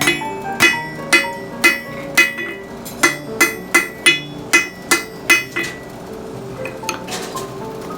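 Blacksmith's hammer forging steel on an anvil: a steady run of ringing blows, about two a second, that stops a little past halfway. Background music plays underneath.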